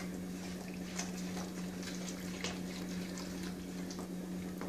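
Spinach purée cooking in a pan on low heat while a plastic slotted spatula stirs it: soft bubbling and faint scattered ticks and sputters. A steady low hum runs underneath.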